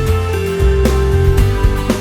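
Background music with a steady beat, bass and held melodic notes.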